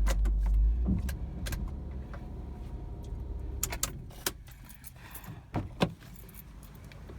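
The Mazda MPV's engine running with a steady low hum, switched off about a second in, followed by keys jangling and a series of sharp clicks as the key is handled.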